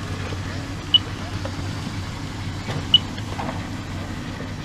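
A steady low engine-like hum with a short, high electronic beep repeating about every two seconds, twice in this stretch, like a vehicle's warning chime.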